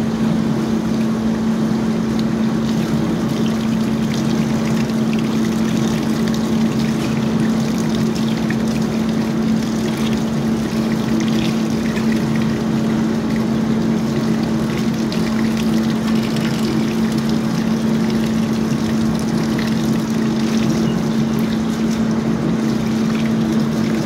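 A motor hums steadily at one unchanging pitch while water sprays and splashes into a concrete gutter.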